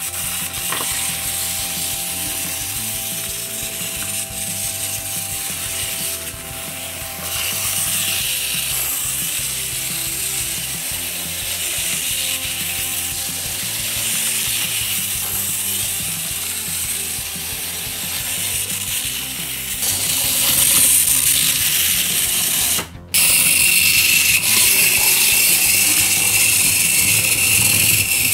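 Clockwork gearbox of wind-up Capsule Plarail toy engines running on plastic track: a steady whirring buzz of the spring-driven gears. It cuts off abruptly about 23 seconds in and comes back louder and higher-pitched.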